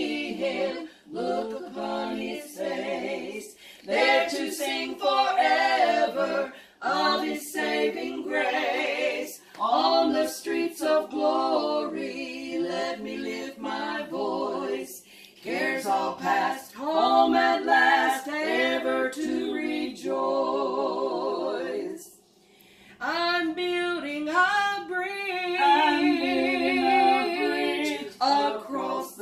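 A small group of women singing a worship song together, unaccompanied, with a short break in the singing about 22 seconds in.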